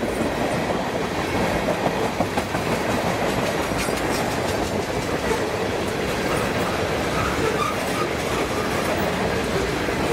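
Freight train tank cars rolling past close by: a steady rumble of steel wheels on rail, with scattered clicks as the wheels pass over rail joints.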